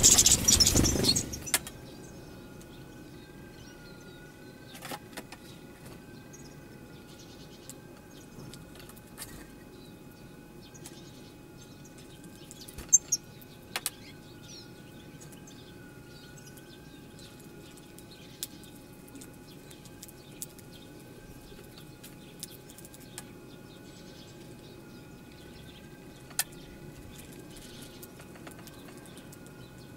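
Faint, scattered chirps and twitters of European goldfinches over a steady low hum, with a few sharp clicks and a faint tone that wavers about once a second. A loud rush of noise fills the first second or so.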